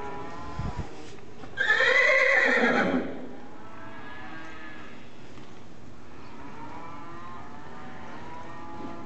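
One of the cattle bawling once, starting about a second and a half in: a loud call lasting over a second that falls away at the end. A dull low thump comes shortly before it.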